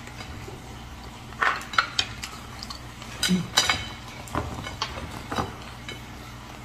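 Scattered light clinks and taps on a ceramic plate as a rice paper roll is wrapped by hand on it, a few with a short ring.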